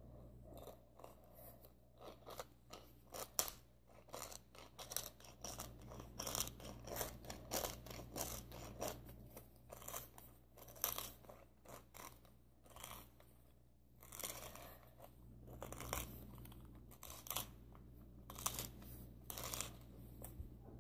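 Wooden pepper mill being twisted by hand, grinding peppercorns with a fast, irregular run of faint crunching clicks that stops and starts in spells.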